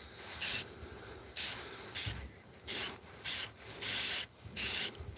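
Aerosol can of Rust-Oleum 2X spray paint hissing in about eight short bursts, one pass after another, as a coat goes onto bare wood.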